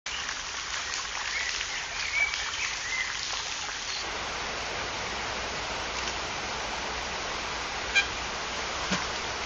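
Outdoor ambience: a steady rushing hiss, with small birds chirping during the first four seconds. After a cut about four seconds in the hiss goes on, broken by two short sharp sounds near the end.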